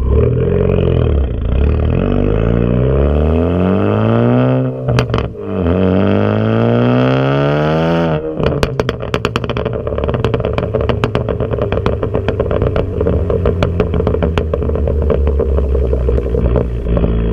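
Straight-piped 2014 Ford Focus ST's turbocharged 2.0-litre four-cylinder accelerating hard, its pitch climbing, dropping briefly about five seconds in, then climbing again. About eight seconds in the throttle comes off and the exhaust pops and crackles in quick, uneven cracks over the lower engine note: the overrun crackle set up by its Stratified pops-and-crackles tune.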